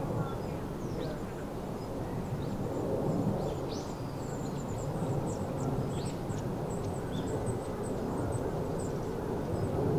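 Outdoor ambience on a hilltop: a steady low rumble, with short, high chirps of small birds scattered throughout.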